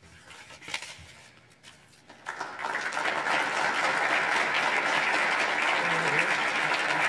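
Audience applauding: a few faint clicks at first, then clapping breaks out about two seconds in and carries on steadily.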